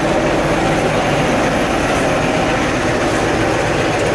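Soviet-built metro train standing at the platform with its doors open, its onboard equipment running with a steady hum and rumble that carries in the hard-walled station.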